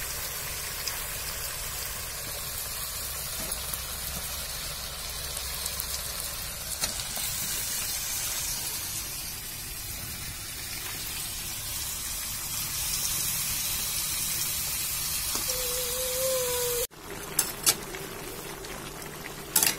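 Chicken frying in hot oil and onion masala in a cooking pot, with a steady sizzle. The sizzle cuts off abruptly near the end, and a few sharp clicks follow.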